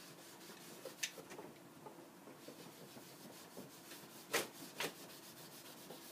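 Faint, steady scrubbing of a cloth rag rubbed over a beech cutting board, working wax floor mastic into the wood. A few sharp knocks come through, the loudest two about four and a half seconds in.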